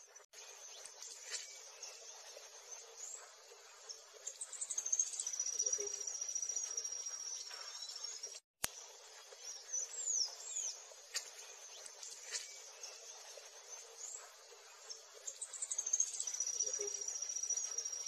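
Birds chirping and calling over a steady high-pitched insect trill that swells and fades twice. A little past halfway the sound drops out for a moment with a sharp click.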